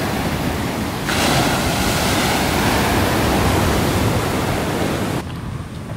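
Sea surf: waves breaking and washing ashore in a steady rush of water. The sound turns abruptly brighter and hissier about a second in, then drops back to a duller wash near the end.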